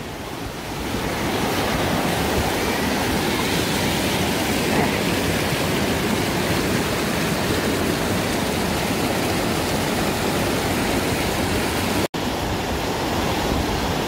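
Mountain stream swollen by days of rain, rushing steadily over granite ledges in rapids and small cascades. The sound breaks off for an instant near the end.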